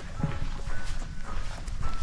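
Footsteps walking on a soft forest trail thick with pine needles: irregular low thuds with rustling.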